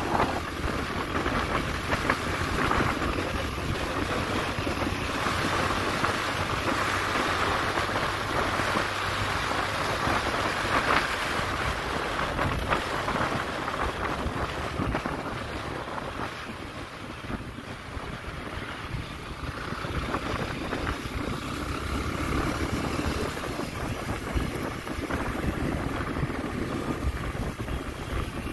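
A vehicle on the move, its engine and road noise steady under wind buffeting the microphone.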